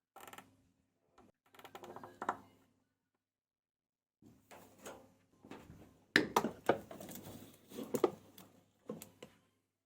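Handling noise of plastic parts inside a washing machine: scattered clicks, light knocks and rustling as the rubber pressure-switch hose is pushed back onto its fitting on the tub and fastened with a plastic cable tie. The sharpest clicks come in the second half.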